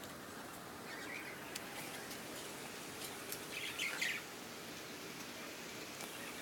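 Short high-pitched animal squeaks or chirps: a faint one about a second in, then a louder cluster around three to four seconds in.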